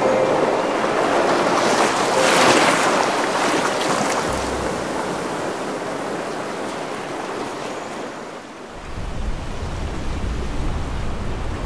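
Sea surf washing up over sand, a wave swelling and draining back about two seconds in. Near the end a low, steady rumble comes in.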